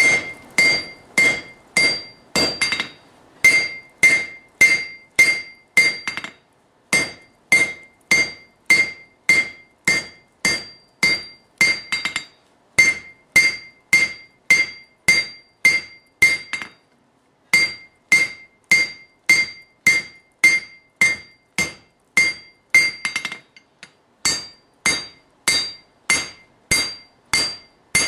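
Hand hammer striking a hot forge-welded Damascus billet on a Peter Wright anvil to draw it out: a steady run of about two or three blows a second, each with a bright ring, broken by a few short pauses.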